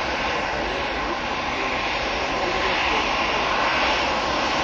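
Jet engines of a Boeing 737-800 airliner (CFM56-7B turbofans) as it climbs away after takeoff: a steady rushing roar that swells slightly toward the end.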